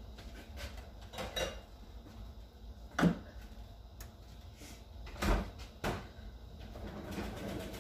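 A few separate knocks and clunks of kitchen things being handled and set down, the sharpest about three seconds in.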